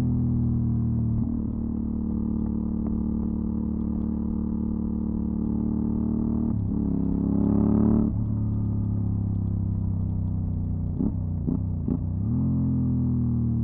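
Aprilia Dorsoduro 750's V-twin engine through a LeoVince SBK aftermarket exhaust, running at low, fairly steady revs. The revs rise for about a second and a half past the middle, then drop off sharply. Near the end there are three quick blips of the revs up and down.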